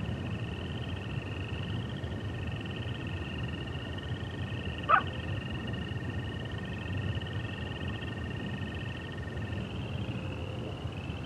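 Frogs and toads calling at night on a prairie: a long steady toad trill that stops near the end, over repeated higher wavering frog trills. A single short, sharp coyote yip about five seconds in is the loudest sound.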